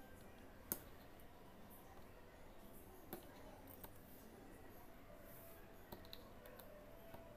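Near silence with a few faint clicks of a needle and small beads as beads are hand-stitched onto fabric; the sharpest click comes about a second in.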